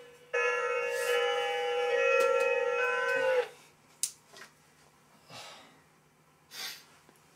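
A loud held tone, steady in pitch for about three seconds, then sagging down in pitch as it stops. After it there are only a few faint breathy sounds and a single click.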